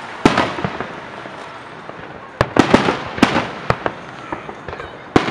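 Aerial fireworks shells bursting with sharp booms that echo after each report: one about a quarter second in, a quick run of about six in the middle, and another near the end.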